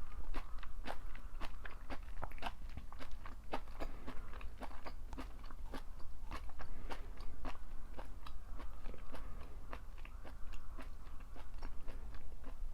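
Close-up chewing and crunching of a stir fry of napa cabbage and shredded pork: crisp, irregular bites and chews, about two to three a second.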